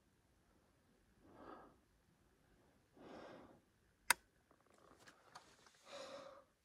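A shooter's slow breaths while he aims, then a single sharp rifle shot about four seconds in, followed by a few faint clicks and another breath.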